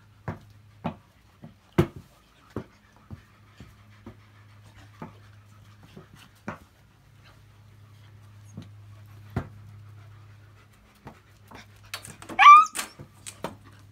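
Dogs at play: a scatter of sharp clicks and taps, then about twelve seconds in a short rising yelp, the loudest sound. A faint steady low hum runs underneath.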